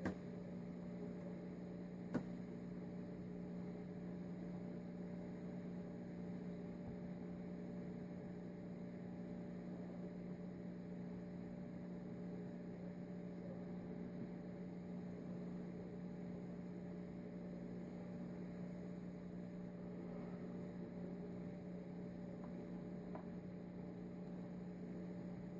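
Steady low electrical hum, with one faint click about two seconds in.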